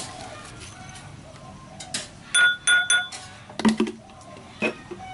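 Kitchenware clinking: three quick ringing clinks of the same pitch about two and a half seconds in, then two duller knocks.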